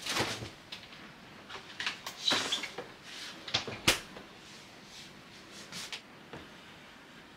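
A run of light knocks, clicks and rustles, like objects being handled and set down, with one sharp knock about four seconds in; it then goes quiet to a faint hiss.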